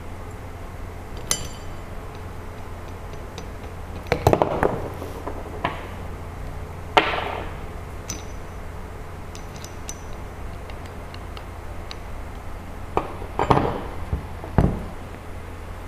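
Scattered metal clicks and clinks from an angle grinder's steel flange nut and pin spanner being handled, with the nut unscrewed from the spindle and parts set down on the table. One short ringing clink about seven seconds in, and a few knocks near the end.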